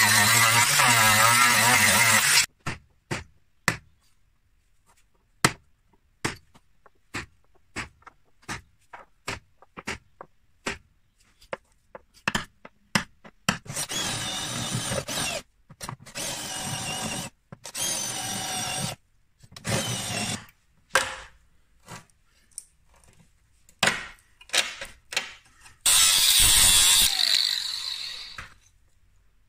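An angle grinder runs for about two seconds and stops. Then a centre punch taps sharply and irregularly on the car's steel sill, marking spot welds, and a cordless drill bores the spot welds out in several short runs. More taps follow, and another burst of power-tool noise comes near the end.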